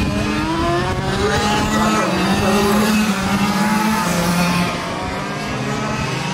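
A pack of quarter-scale RC sportsman race cars running laps together. Several small engines at different pitches overlap, their notes rising and falling as the cars speed up and slow through the turns.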